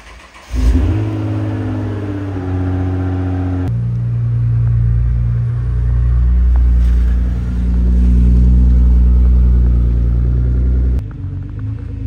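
Nissan GT-R R35 twin-turbo V6 starting up about half a second in, flaring briefly, then dropping and settling into a fast idle. After that it runs loud and low and steady, with abrupt jumps in the sound at about four and eleven seconds.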